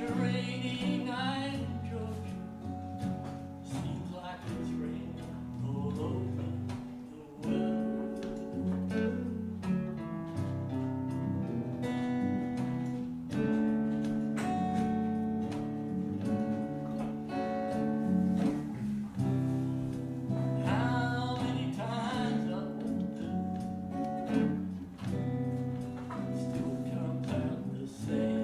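Live performance of a slow swamp-blues song: guitar played over a backing track, with singing.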